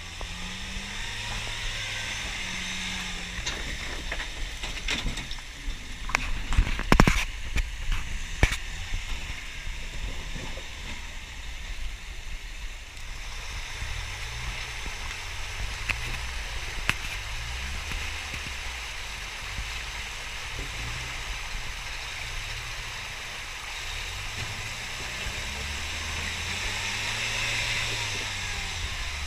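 Rushing water of a rocky creek waterfall over a lifted Mazda pickup's engine, whose revs rise and fall as the truck crawls up the rocks. A cluster of sharp knocks and bangs comes about five to eight seconds in, the loudest near seven seconds, as the truck hits rock.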